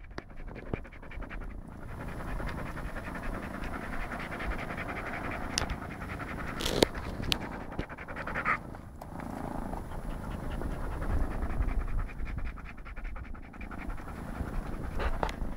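Belgian Tervueren dog panting steadily close by, with a few brief clicks near the middle.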